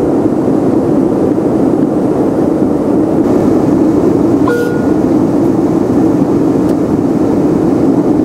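Steady cabin noise of a Boeing 747-400 at cruise, heard inside the cabin: an even, deep rush of airflow and engine noise with no change in pitch. A short tone sounds about halfway through.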